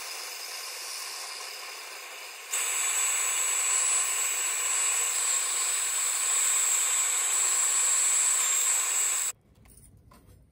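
Handheld gas torch hissing as its flame heats a pierced brass plate. About two and a half seconds in it gets louder and a steady high whistle joins the hiss. It stops abruptly near the end, leaving faint clicks.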